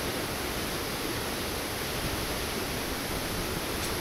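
Large mountain waterfall in full spring flow, a steady, even rush of water crashing onto rocks.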